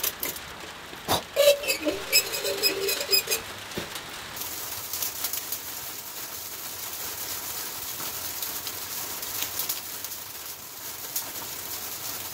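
A kerosene hurricane lantern being handled: a knock, then a couple of seconds of squeaky metal squealing and rapid clicking as it is adjusted. From about four seconds in comes a steady patter of freezing rain and sleet on the shed roof.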